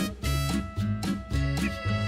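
Background music with a steady, bouncing bass beat.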